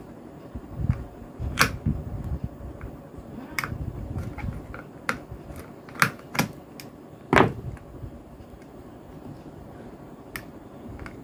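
Soldering wires onto switch terminals on a small board: a soldering iron tip tapping and scraping on the metal terminals, giving a handful of sharp clicks spread through, the loudest about seven seconds in, over low handling rumble.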